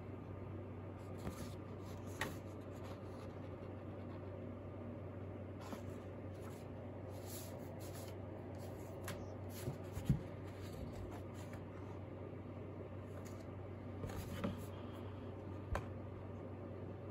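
Sheets of drawing paper rustling and sliding as they are handled and shuffled on a desk, in short scattered bursts, with a soft knock about ten seconds in, over a steady low hum.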